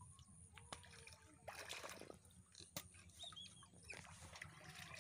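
Faint sloshing of shallow muddy water as a hoe blade is worked through it, with a louder splash about a second and a half in. Faint bird calls are in the background.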